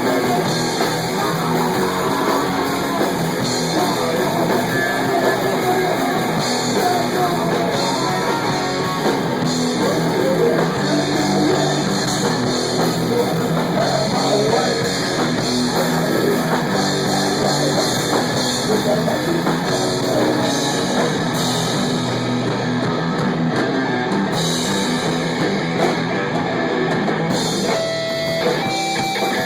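Rock band playing live, with distorted electric guitar and a drum kit. Near the end the drums drop out and the guitar carries on alone.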